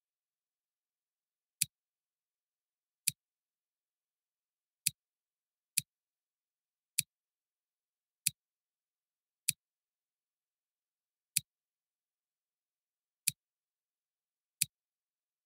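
Computer mouse clicks: ten single sharp clicks, spaced unevenly about one to two seconds apart, with dead silence between them.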